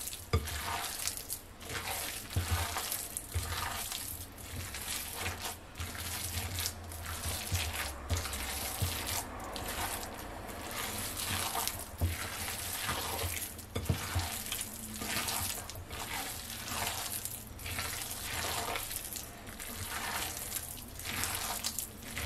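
Wet squelching and squishing of bare hands kneading and squeezing raw minced chicken with chopped vegetables in a glass bowl, in irregular repeated strokes about once or twice a second.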